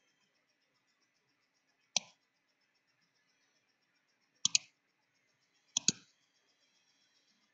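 Computer mouse clicks: a single click about two seconds in, then two quick double clicks a little over a second apart.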